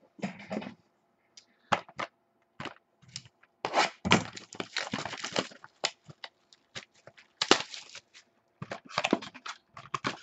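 A small cardboard Topps Inception card box handled and opened by hand: irregular sharp clicks and taps of cardboard with short scraping stretches, the busiest about four seconds in and a loud click about halfway through.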